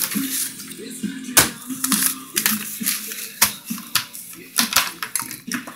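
Handling noise from a handheld camera being moved around: repeated knocks, rubs and clatter against the microphone, over faint music.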